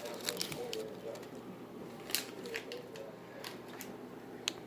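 Scattered short, sharp clicks and crinkles, about six of them, the loudest about two seconds in and another near the end, over faint talking in the background.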